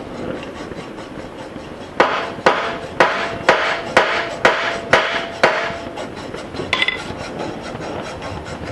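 Hammer striking the red-hot end of a new axle in a cast iron caster wheel, upsetting it so it won't pull back out. There are eight metallic strikes about two a second, each with a brief ring, over the steady hiss of a lit gas torch, and one light clink near the end.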